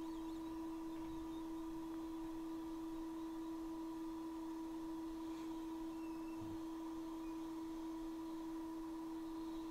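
A steady, unchanging electrical hum tone, with a fainter higher tone above it.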